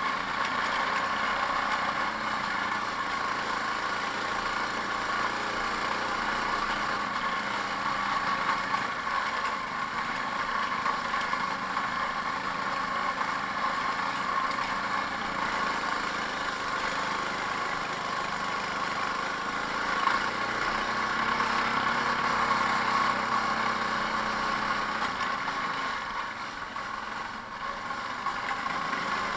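Off-road go-kart engine running steadily as the kart is driven over a rough dirt trail. The engine note swells briefly about two-thirds of the way in, then eases off near the end.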